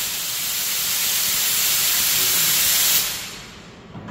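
Stainless-steel retort sterilizer venting its pressure before the door is opened: a loud, steady hiss of escaping steam and air that fades away about three seconds in.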